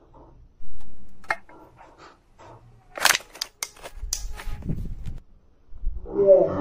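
Aluminium beer can crumpling: a quick run of sharp crackling clicks about three seconds in.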